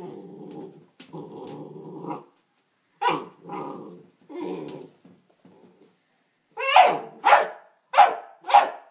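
Neapolitan Mastiff x Pit Bull puppy growling for about two seconds, then one bark and more growls, then four sharp barks in quick succession near the end.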